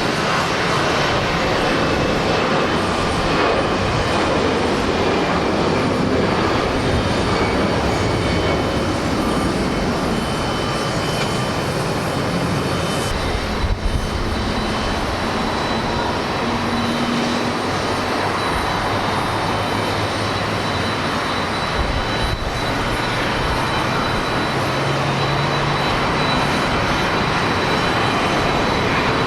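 Jet airliner engines at takeoff power, a loud steady roar with a faint high whine running through it, briefly dipping twice.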